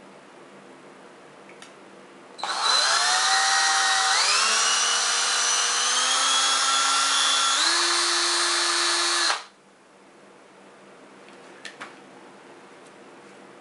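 Power drill running for about seven seconds, drilling a hole through a Venetian blind's tilt rod; its whine rises as the motor spins up and steps up in pitch twice before stopping suddenly.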